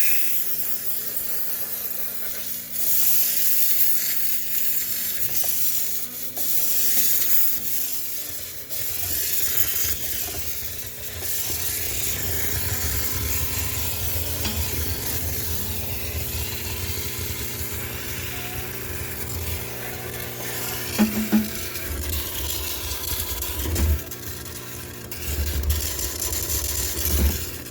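High-pressure cleaner spraying into a sneaker washing machine, a hissing spray that swells and fades as it is worked over the drum, with a low rumble underneath that grows stronger partway through.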